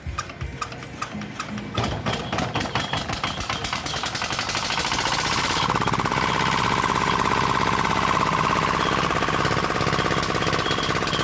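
Single-cylinder D10 diesel engine catching and picking up speed, its knocks coming faster and louder over the first few seconds. It then runs steadily at a fast clip on a newly fitted injector and high-pressure injection pump, its firing not yet adjusted to settle.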